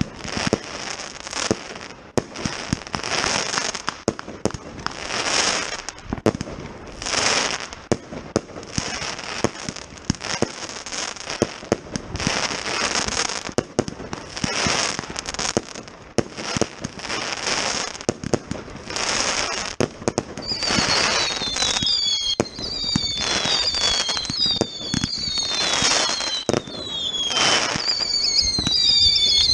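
Firework batteries (cakes) firing shot after shot: sharp launch pops and a hissing, crackling burst about once a second from the Geisha Venom Box batteries. About 20 seconds in, the Toschpyro 47 battery joins and adds several descending whistles.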